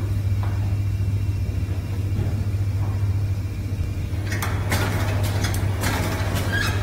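Cigarette box cellophane wrapping machine running: a steady low hum, joined about four seconds in by a string of sharp mechanical clacks from its mechanism.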